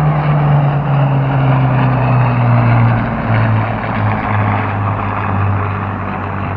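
Propeller aircraft flying past: a steady engine drone whose pitch falls slowly, over a noisy background.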